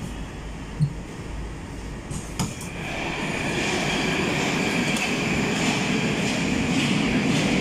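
Moscow metro 81-765 train's sliding doors unlocking and opening with a few sharp clicks about two and a half seconds in. After a quieter stretch of low rumble and a couple of thumps, a steady, louder hiss of platform air fills in once the doors are open.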